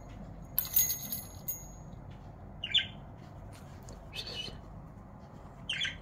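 Pet budgerigars calling: a loud, harsh call lasting about a second near the start, then three short chirps spaced over the next few seconds, over steady low background noise.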